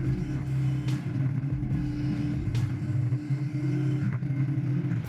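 Heavy machine's engine running with a steady low drone, with a few sharp clicks over it.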